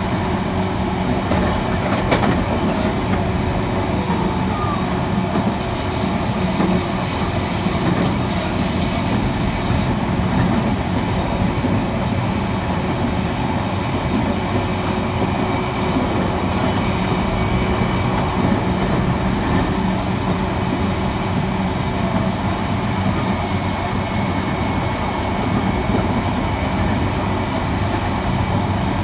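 JR East E129 series electric train running at a steady speed: continuous rumble of wheels on rail with a steady low hum and a faint high tone.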